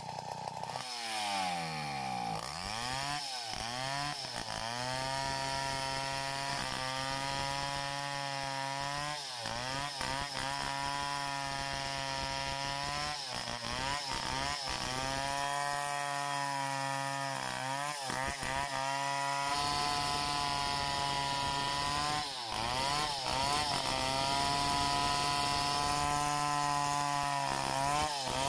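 Two-stroke chainsaw at full throttle ripping lengthwise through a log. The engine revs up in the first few seconds, then holds high, with its pitch briefly sagging under the load and climbing back every few seconds as the chain bites through the wood.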